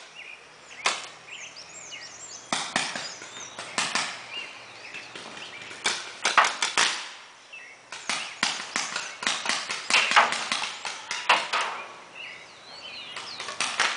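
Paintball markers firing: sharp pops in quick runs of two to five shots, coming every second or two at irregular intervals.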